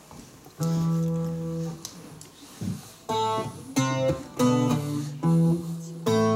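Acoustic guitar: a single note rings for about a second, then after a pause the playing starts in earnest, plucked notes and chords about every half second as the song's introduction.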